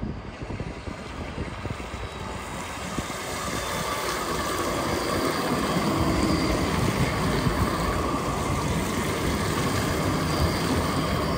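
NGT DX DD articulated low-floor tram approaching and passing close by on wet track. Its running noise swells over the first six seconds and then holds steady, with a faint high whine.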